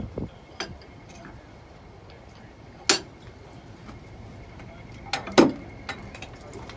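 Scattered metal clinks and knocks of railway coupling gear being worked by hand, as a steam locomotive is uncoupled from the vehicle behind it. Sharp single strikes, the loudest about three seconds in and another cluster about five seconds in, over a faint steady high tone.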